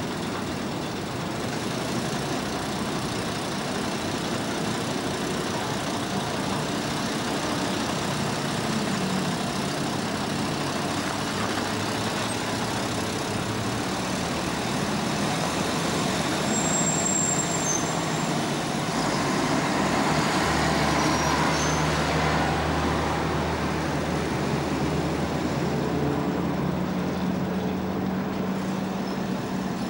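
Diesel bus engine idling at a stop, then pulling away, its engine getting louder about two-thirds of the way through, over steady street traffic noise.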